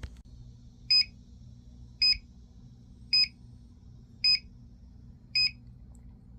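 Cargo Container carbon monoxide alarm beeping: five short, high-pitched electronic beeps, evenly spaced about one a second.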